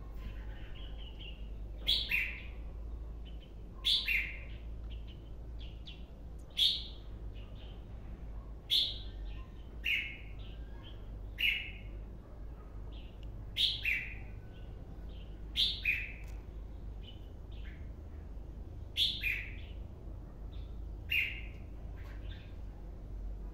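Caged red-whiskered bulbul (chào mào, white-cheeked) singing: short, loud phrases of a few quick falling notes, repeated every one to three seconds.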